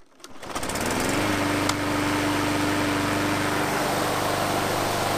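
Petrol rotary lawn mower engine pull-started, firing in quick ticks and catching within about a second, then running steadily at one even pitch. A single sharp click about a second and a half in.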